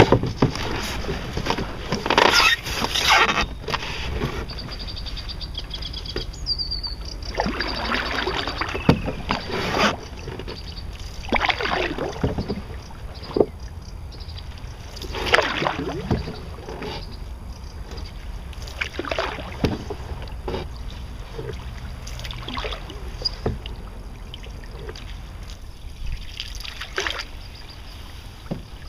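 Wooden canoe paddle dipping and pulling through calm water, with splashes and drips every second or two.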